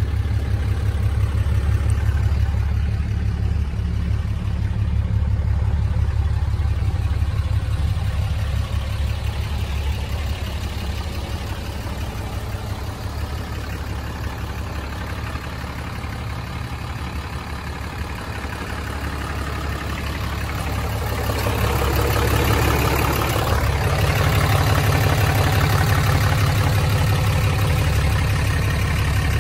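Dodge Ram 3500 pickup's 6.7-litre Cummins diesel engine idling steadily. The sound dips somewhat in the middle and grows louder again about three-quarters of the way through.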